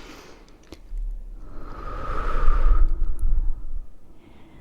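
A slow breath of about three seconds blown close into a sensitive microphone, airy and loud in the middle, with the low rumble of air hitting the mic. A couple of faint mouth clicks are heard around it.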